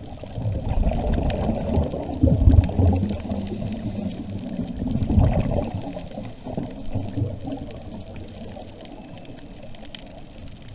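Scuba diver's exhaled bubbles gurgling from the regulator, heard muffled underwater, in surges about one to three seconds in and again around five seconds, then quieter toward the end.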